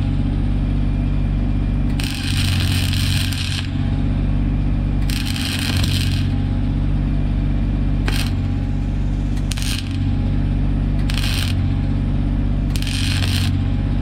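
Arc welding in about six short crackling bursts, each under two seconds, laying weld on a sheared wheel-hub stud to build it up and fix a nut to it for extraction. A steady low engine hum runs underneath.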